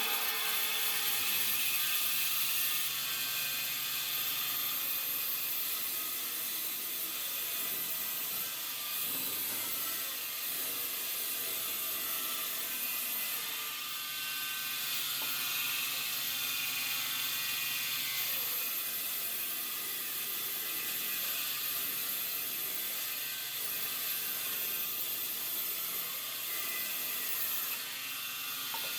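A woodworking power machine running steadily, a continuous high whirring noise with a faint low hum underneath.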